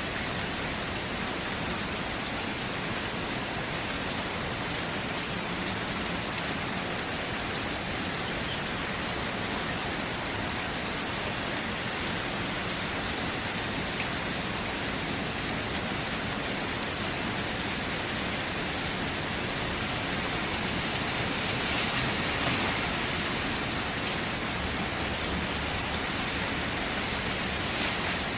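Heavy rain drumming steadily on a tent's fabric, heard from inside the tent, with a brief swell in intensity about three-quarters of the way through.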